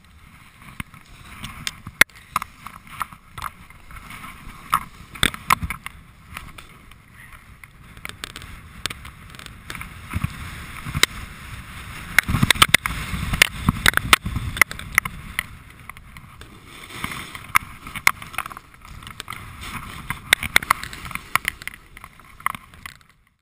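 Snowboard sliding and carving down packed snow: a rough, uneven scraping of the board's base and edges on the snow, mixed with wind on the microphone and many sharp clicks and knocks. It grows loudest about halfway through, then drops away sharply just before the end.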